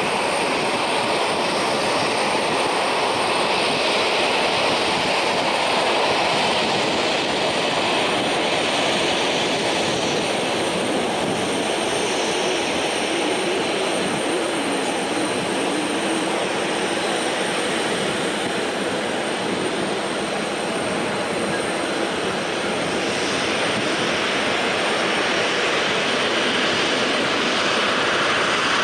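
Boeing 737-800's CFM56-7B turbofan engines running at taxi power as the jet taxis past, a loud, steady rush of engine noise with a faint high whine over it.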